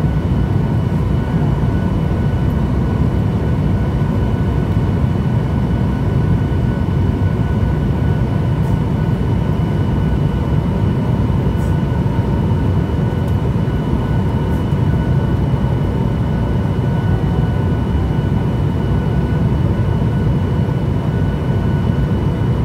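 Jet airliner cabin noise while descending to land: a steady low rumble of engines and airflow, with a thin steady whine above it.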